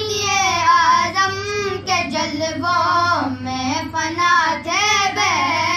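A single voice singing a manqabat, a devotional poem in praise of a saint, drawing out long ornamented notes that bend and waver in pitch.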